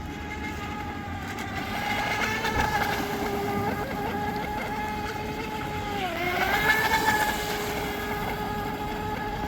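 Electric RC speedboat's brushless 2600 kV in-runner motor on 3S, turning a 36 mm prop, giving a steady high whine at speed. About six seconds in the pitch dips briefly and climbs back, and the whine grows louder for a moment.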